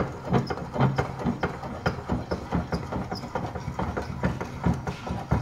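Steel bench vise being cranked by its handle: a rapid, even series of metallic clicks and clanks, about four or five a second.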